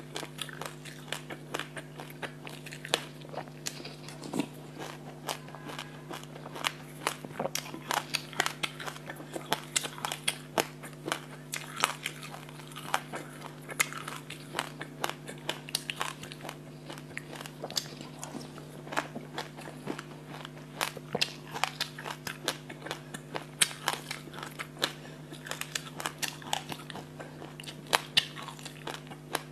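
Black sesame seeds with passion fruit crunched and chewed close to a clip-on microphone: a dense, irregular run of small crisp clicks and crackles, over a steady low hum.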